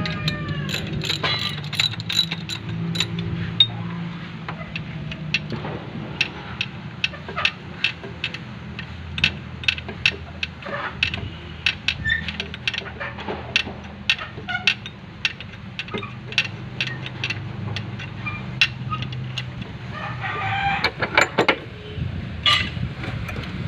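Irregular sharp clicks and clinks of metal hand tools against engine parts while working on the front pulleys of a diesel engine, over a low steady hum.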